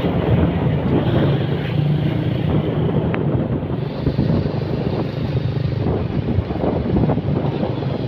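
A vehicle engine running steadily while riding, with wind rushing over the microphone.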